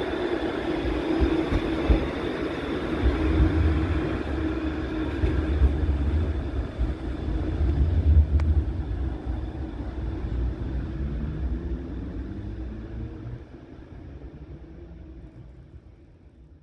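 Pesa Swing low-floor tram running along street track, a steady low rumble with a thin high tone above it. It fades away over the last few seconds as the tram moves off.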